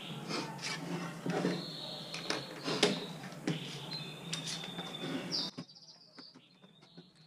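Clicks and knocks of hand tools and bar clamps being handled on a wooden workbench, with birds chirping faintly in the background. The sound drops off sharply about five and a half seconds in, leaving only faint clicks and chirps.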